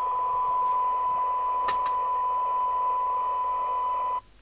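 FM CB radio receiver playing a steady 1 kHz test tone from a signal generator through its speaker, over a band of receiver hiss, with a couple of small clicks partway through; the tone and hiss cut off suddenly near the end.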